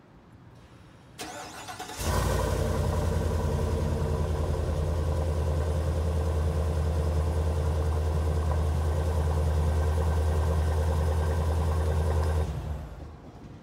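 2020 GMC Sierra 2500HD's 6.6-litre gas V8, heard at the exhaust tip: it cranks for under a second, catches about two seconds in and idles steadily, then shuts off and dies away near the end.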